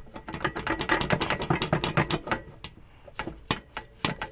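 Hand ratchet wrench clicking: a quick, dense run of clicks for about two seconds, then slower, separate clicks.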